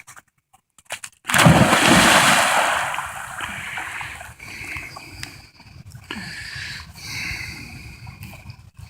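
A dog leaping into the water, with one loud splash about a second in that dies away over a couple of seconds, then softer sloshing and splashing as she swims out.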